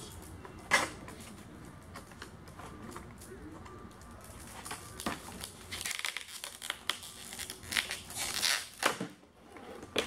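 Stiff clear plastic clamshell packaging being pried open and handled: a sharp snap about a second in, then a stretch of crackling and crinkling of the plastic in the second half.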